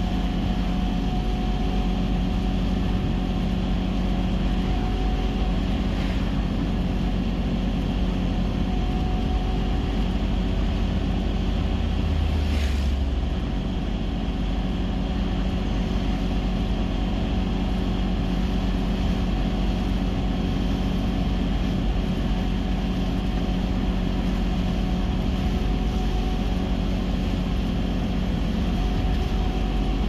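Car interior noise while driving on a highway: steady engine hum with tyre and road rumble heard from inside the cabin, and a brief low rumble about twelve seconds in.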